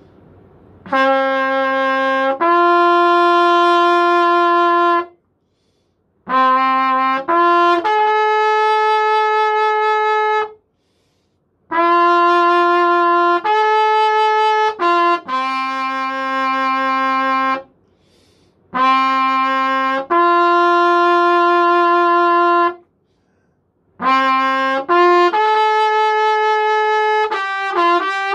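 A silver B-flat trumpet played by a beginner in slow phrases of long held notes. There are five phrases, each a few seconds long with short pauses between them, and most step up from a lower note to a held higher one.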